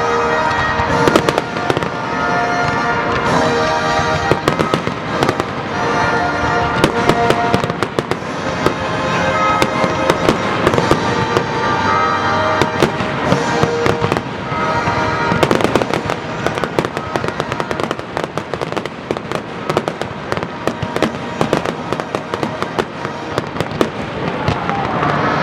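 Fireworks exploding and crackling in rapid succession, a dense barrage of bangs throughout, with music playing alongside that is clearest in the first half.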